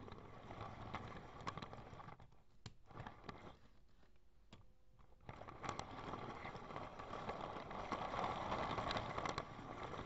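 Faint clicks and rattles of 3D-printed plastic HO train cars rolling by hand along 3D-printed plastic track. From about halfway, a louder, steady rustling and scraping of handling.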